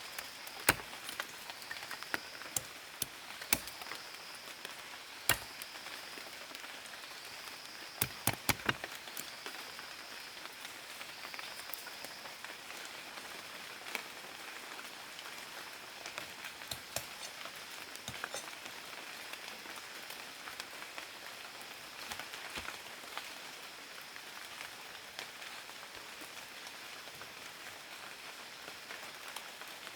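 Outdoor ambience with a steady high buzzing hiss and scattered sharp knocks and clicks, including a quick run of four knocks about eight seconds in.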